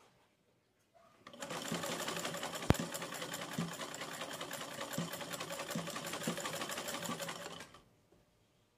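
Sewing machine stitching a curtain hem at a steady, rapid pace. It starts about a second in and stops near the end, with one sharp click about three seconds in.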